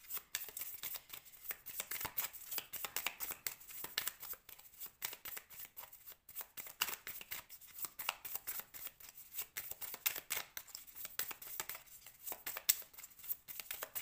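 A deck of cards shuffled by hand: a steady run of quick, light clicks as the cards slide and flick against each other.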